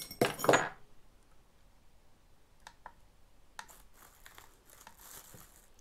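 Metal parts handled on a table: a sharp clink right at the start, then a few faint clicks and some light rustling of packaging as a steel motorcycle front sprocket is picked up for weighing.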